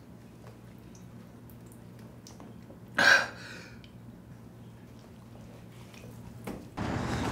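A man lets out one short, sharp sob about three seconds in, over a low steady room hum. Near the end, outdoor street ambience cuts in.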